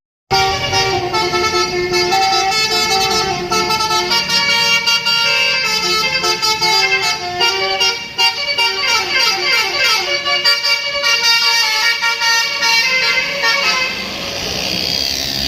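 Bus basuri horn playing a melody: a loud run of horn notes stepping up and down in pitch, with a stretch of sliding notes about halfway through.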